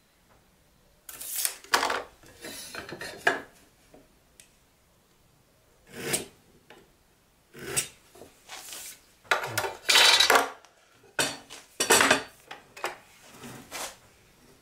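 Workshop handling noises: wooden pieces and tools are scraped, slid and set down on a workbench in a series of irregular scrapes and clatters, with short quiet gaps between them.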